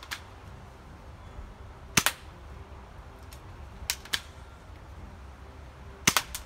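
Cheap spring-powered airsoft submachine gun firing three shots about two seconds apart. Each is a sharp snap with a second click close behind.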